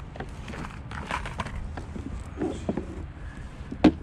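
Irregular knocks, clicks and clunks of gear being handled against a plastic kayak's deck, with a sharp, louder knock near the end.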